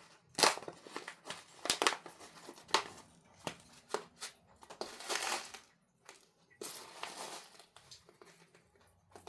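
Crinkling and rustling of a loose-tea package being opened and handled, in irregular bursts with short pauses.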